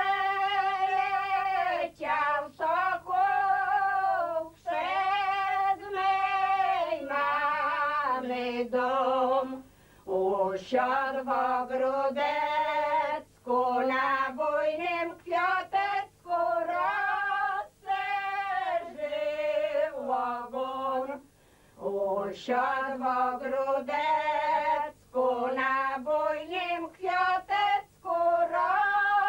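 Elderly village women singing a Łowicz folk song without accompaniment, in phrases of long, wavering held notes with short breaths between them.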